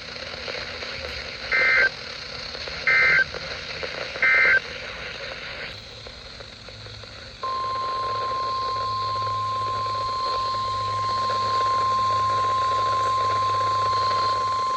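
EAS/SAME digital data bursts on a NOAA Weather Radio broadcast: three short, harsh warbling blips about a second and a half apart, the end-of-message code closing a warning. A few seconds later the steady 1050 Hz weather radio attention tone starts and holds over a radio hiss.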